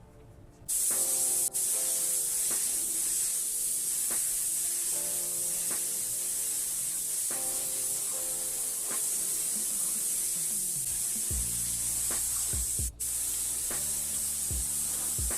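Spray can hissing in one long, steady spray that starts suddenly about a second in, with two brief breaks where the nozzle is let go. Background music plays underneath.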